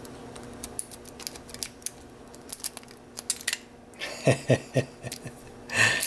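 A lock pick and tension wrench raking the pins of a Master Lock No. 5 padlock: a quick, irregular run of light metallic clicks and scrapes that eases off about three and a half seconds in. A few short vocal sounds follow near the end.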